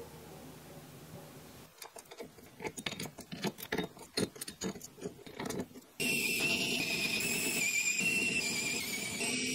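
Light metallic clicks and taps from small parts being handled with tweezers in an aluminium mini-engine cylinder head. Then, past the halfway point, a small electric screwdriver's motor runs with a steady high whine, driving the head screws.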